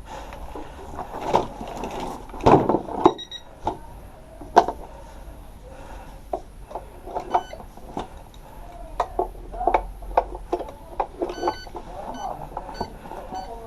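Keys being pressed on an airsoft bomb prop's keypad while it is armed: scattered clicks and knocks of handling, with a few short electronic beeps from the prop.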